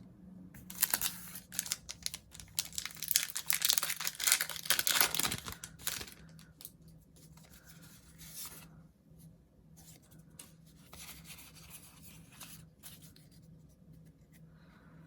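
Foil booster-pack wrapper being torn open and crinkled, a dense run of tearing and crackling for the first several seconds, then fainter, scattered crinkling.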